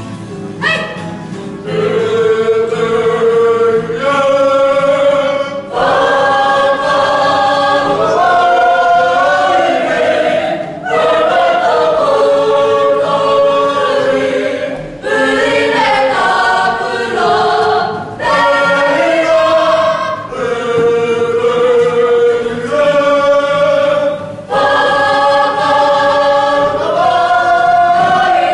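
A mixed group of high-school students singing together as a choir, in sung phrases of a few seconds each with short breaks for breath; it starts softly and swells to full voice about two seconds in.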